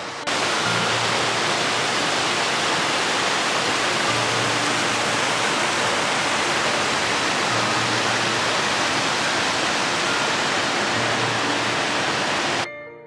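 Mountain stream rushing over small rocky cascades, a steady full water noise that starts suddenly just after the start and cuts off sharply near the end.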